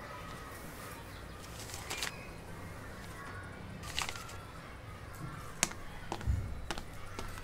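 Quiet ambient background with faint bird calls and a few sharp clicks or taps.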